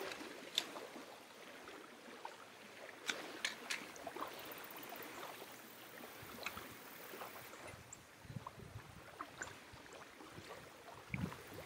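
A few sharp clicks and small knocks as a hurricane oil lantern is handled and lit, most in a cluster about three seconds in. Behind them is faint lapping of lake water.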